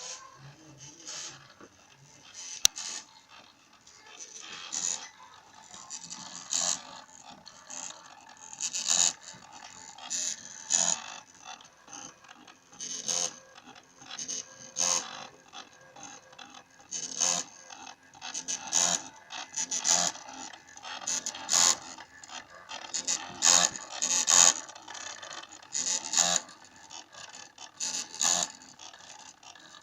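Small stepper motors from DVD drives in a homemade CNC plotter buzzing in short, irregular bursts as the axes make quick moves, with a sharp click about three seconds in.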